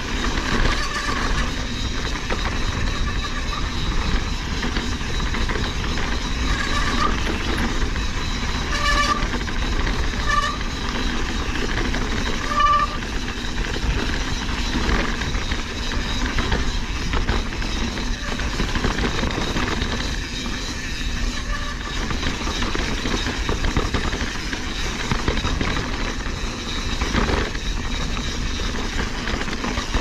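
Mountain bike riding over a rocky jeep trail: steady wind rumble on the action-camera microphone, with the bike's chain and tyres rattling and clicking over rock. A few short high-pitched squeaks come about nine to thirteen seconds in.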